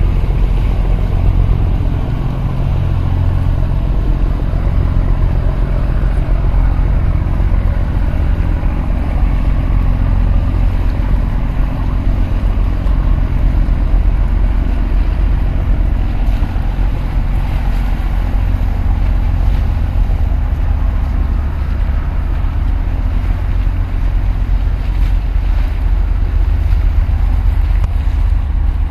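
Steady low rumble of ship engines as a large container ship and its pilot boat pass close by, mixed with wind buffeting the microphone.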